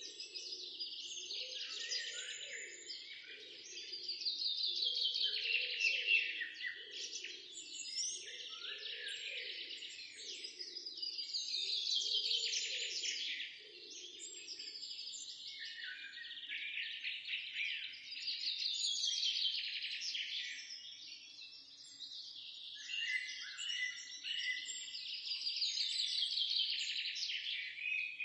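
Songbirds singing and chirping in a dense chorus, with a louder trilled phrase that falls in pitch every six or seven seconds.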